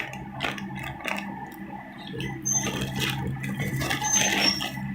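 Paper and cardboard packaging being handled: irregular rustling, crinkling and small taps, over a steady low electrical hum.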